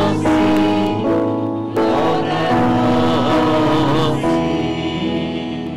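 Choir singing a slow penitential chant during the penitential act of Mass. The sung phrase tapers and fades near the end.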